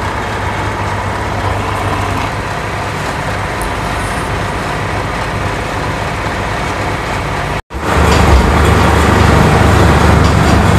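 Steady low mechanical hum with a noisy background. It cuts out for an instant about three-quarters through and comes back louder and deeper.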